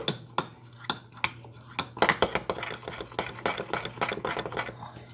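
A utensil clicking and scraping against a mixing bowl as pancake batter is stirred, in quick irregular clicks that grow busier about two seconds in.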